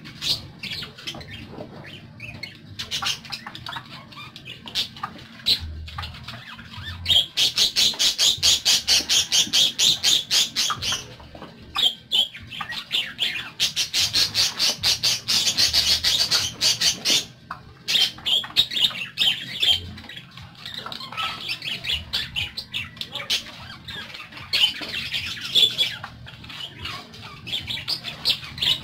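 Budgerigars (parakeets) chattering and chirping in a busy stream of high calls. At times it swells into fast runs of rapid, repeated chirps.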